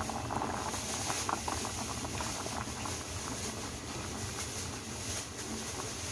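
Soy-sauce braising liquid with eggs and pork boiling hard in a cast-iron pot: a steady, rapid bubbling with many small pops.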